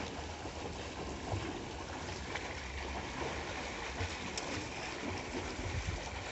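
Swimmers kicking and splashing in a swimming pool: a steady wash of churning water with a low rumble underneath.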